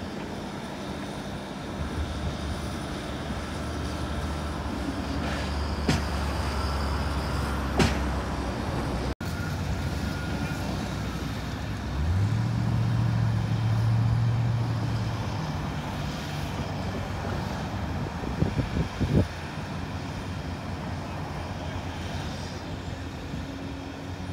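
Caterpillar tracked excavators' diesel engines running steadily; about halfway through, an engine revs up to a higher pitch and holds for a few seconds under load. A few sharp knocks sound over the engine noise.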